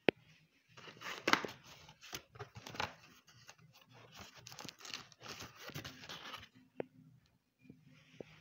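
Cardboard boxes and plastic packaging being handled and rummaged through: a sharp knock at the start, then about six seconds of dense, irregular rustling and scraping, and a single click near the end.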